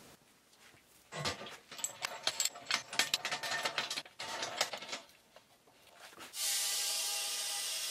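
Clicks and metal clatter as the lid clamps of an air pressure pot are worked, then a steady hiss of compressed air filling the pot, which is being brought up to about 20 PSI to pressurise a freshly poured plaster investment mold.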